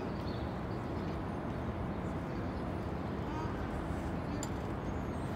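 Steady outdoor street ambience: a low hum of traffic with the murmur of indistinct voices of people nearby.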